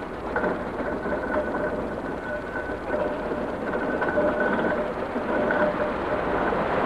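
Steam traction engine running as it comes along the road.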